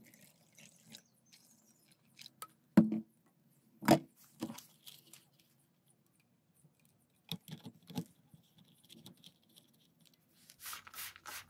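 Light knocks and clicks of a plastic funnel, plastic bottle and trigger spray head being handled while the bottle is filled and capped. Near the end comes a quick regular series of short hisses from a trigger sprayer being pumped.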